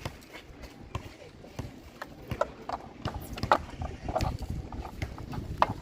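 Irregular clicking and clacking of plastic toy construction vehicles being handled and moved about.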